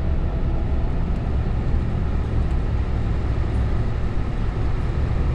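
A vehicle driving on the road: a steady low rumble of engine and tyre noise.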